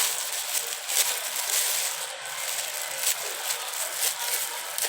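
Rubbing and rustling of a small cosmetics box handled close to a phone's microphone, with scattered light clicks and scrapes.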